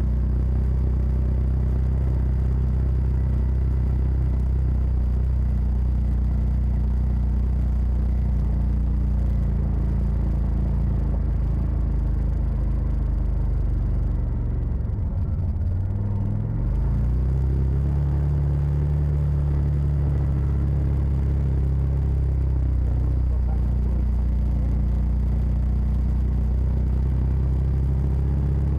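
CF Moto side-by-side engine running steadily under way on a dirt road, with a low drone throughout. About halfway through the engine note drops off for a couple of seconds, then climbs back up to a steady pull.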